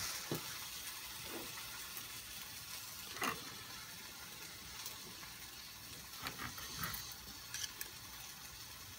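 Knife and fork clicking and scraping a few times on a ceramic plate as a cooked steak is cut, over a faint steady hiss.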